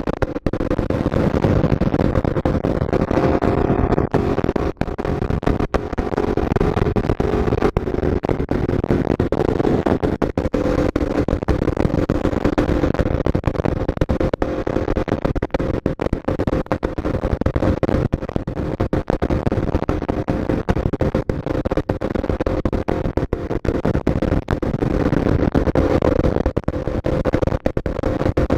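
Aprilia RSV4's V4 engine holding a steady cruise on the highway, almost buried under loud wind blast rushing and crackling over the bike-mounted microphone.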